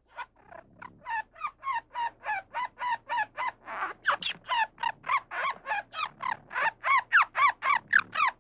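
An animal calling in a rapid series of short, sharp calls, about three to four a second, each rising and falling in pitch, with a few louder calls near the end.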